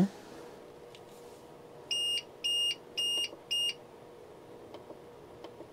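APC Smart-UPS SMT1500 sounding four short, high-pitched beeps about twice a second: its on-battery alarm, given with mains power unplugged. A few faint clicks follow near the end as its front-panel buttons are pressed.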